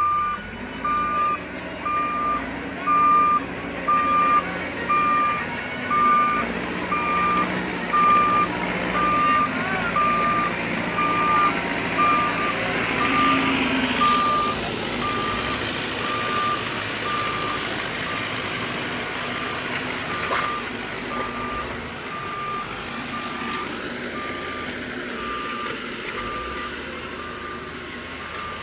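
Reversing alarm on a Mahindra backhoe loader beeping steadily over the diesel engine as the machine backs up. About halfway through the engine and hydraulic noise rises with a hiss and the beeps drop further into the background.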